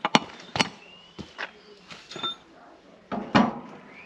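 Hammer striking a brass drift against a Massey Ferguson 35's front wheel hub, tapping the new wheel bearing into place. There are several light metal taps over the first two seconds, then a louder knock about three seconds in.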